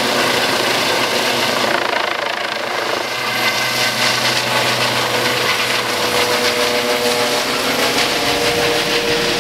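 Eurocopter EC135 twin-engine air ambulance helicopter flying low overhead after take-off, then banking away: loud, steady rotor and engine noise. A steady whine comes up out of the noise about halfway through.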